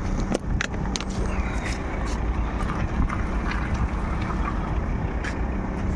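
Water from a hose spraying and splashing onto a car windshield, with steady wind rumble on the microphone and a few light clicks.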